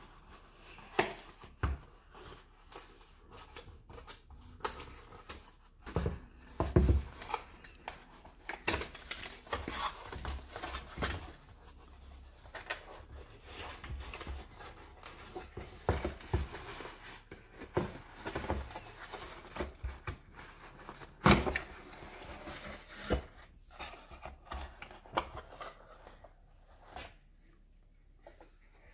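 Cardboard box being opened by hand: scratching, tearing and flaps rubbing, with irregular knocks and taps, the loudest about seven seconds in and again about twenty-one seconds in.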